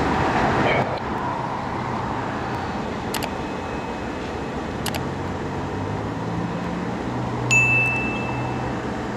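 Subscribe-button animation sound effects: two sharp mouse clicks about three and five seconds in, then a bright notification-bell chime near the end that rings briefly. Underneath runs the steady noise of a freight train passing.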